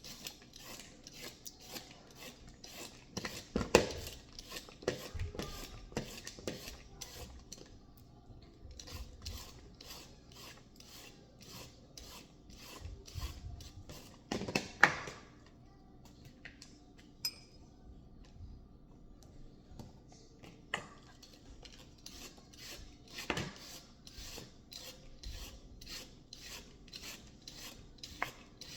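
Kitchen food preparation by hand: short rasping strokes repeating at about two or three a second, with a couple of louder knocks, one about four seconds in and the loudest about fifteen seconds in.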